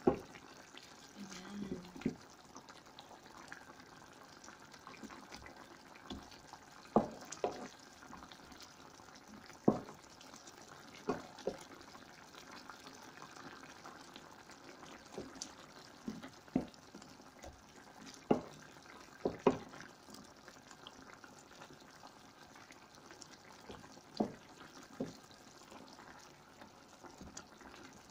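Chicken curry in coconut milk simmering and bubbling in a pan, with a wooden spoon stirring and knocking against the pan every few seconds.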